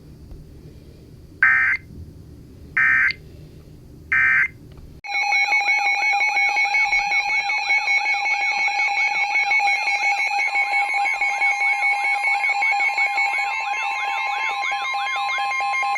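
Emergency Alert System signalling tones on a weather alert broadcast: three short bursts of digital SAME data tones, which here close the previous alert as its end-of-message code. About five seconds in, a loud continuous electronic alert tone begins: a steady tone with rapidly warbling sweeps over it, and a second higher steady tone joining about halfway through.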